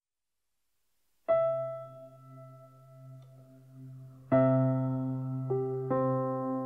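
Slow solo keyboard music with a piano tone, starting after about a second of silence: one chord left to ring and fade, then a fuller chord about four seconds in with more notes added soon after.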